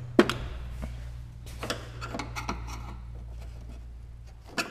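A sharp clack of metal tools in a tool-chest drawer just after the start, then scattered light clicks and scrapes as two screwdrivers pry at a stuck plastic push-pin clip on the car's undertray. A steady low hum runs underneath.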